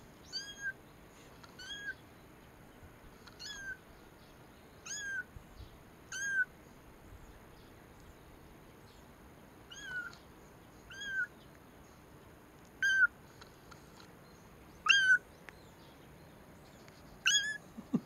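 A very young white kitten mewing: about ten short, high-pitched mews every one to three seconds, the last few louder.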